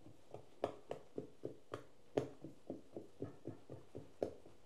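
Metal fork pricking shortcrust dough in a springform pan: a quick, even series of soft taps, about three to four a second.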